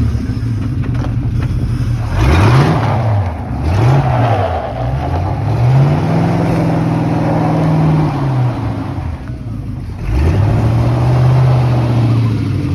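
A car engine being revved hard in repeated pulses, each rising in pitch and dropping back. Two short pulses come about two and three and a half seconds in, a longer one is held for a couple of seconds, and a final rise about ten seconds in stays up.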